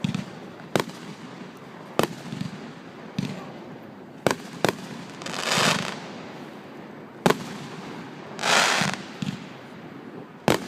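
Fireworks display: about seven sharp bangs of aerial shells going off at uneven intervals, two of them close together near the middle, with two longer hissing bursts in between.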